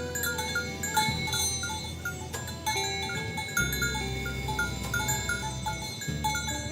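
Background music with a quick, repeating bell-like melody over a steady low tone.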